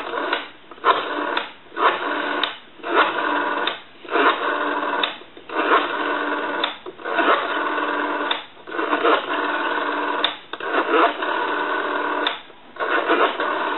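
Rotary dial of an old wooden wall telephone dialing out a number, heard as a steady buzzing tone on the line that cuts out briefly about ten times at uneven intervals as digit after digit is dialed.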